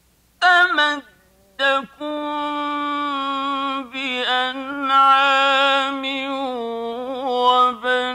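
A man chanting Quran recitation in the melodic mujawwad style. A few short phrases come after a brief pause, then about two seconds in he holds one long note with ornamented, wavering pitch.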